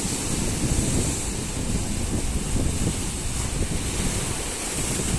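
Sea surf washing steadily along the shore, with wind buffeting the microphone in a low, gusty rumble.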